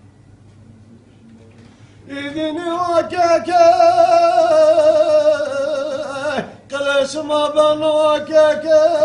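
A man singing unaccompanied in long, drawn-out, wavering notes. He starts about two seconds in and breaks off briefly with a falling pitch just past the middle.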